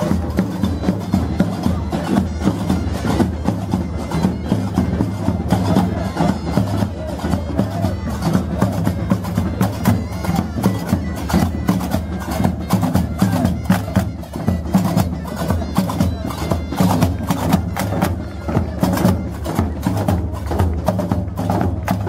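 Moroccan street-troupe folk music: frame drums and hand percussion beating a fast, steady rhythm under a sustained pitched melody.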